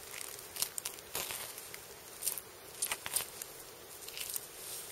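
A knife cutting through a deer's hide and membranes as the skin is pulled back, heard as a handful of short, irregular scratchy tearing strokes.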